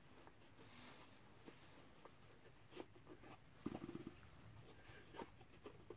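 Faint handling noises as gloved hands work a watch out of its tight-fitting gift box: soft clicks and rustles, with a brief rasp a little past halfway through.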